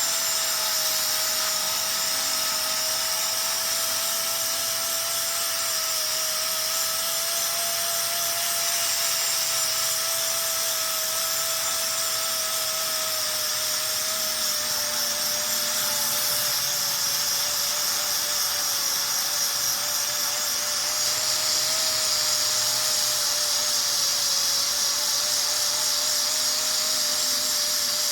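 A small high-speed power tool running continuously through metal-repair work: a steady high whine with a strong hiss, its pitch drifting only slightly.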